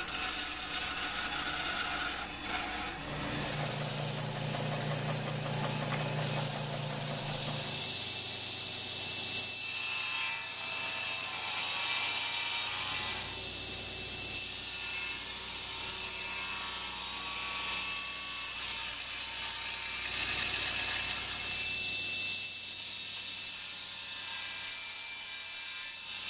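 Woodworking power saws cutting wood: a band saw cutting a board first, then a table saw running and making several cuts in a small piece of wood, the cutting noise swelling and easing as each cut goes through.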